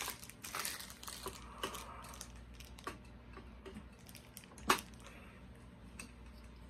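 Clear plastic wrapping crinkling and small plastic clicks and taps as a multi-head LED grow light is handled, with one sharper click about two-thirds of the way in.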